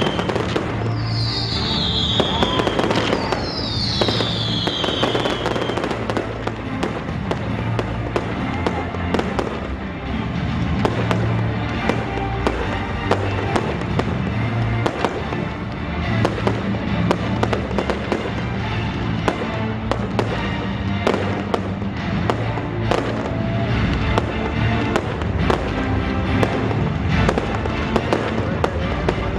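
A fireworks display: a dense, continuous run of bangs and crackling, with three falling whistles in the first few seconds. Music plays underneath.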